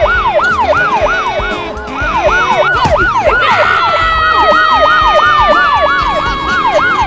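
Police siren sound effect in a fast yelp, its pitch rising and falling about three times a second. About halfway through, a second held tone joins it and slowly slides down in pitch.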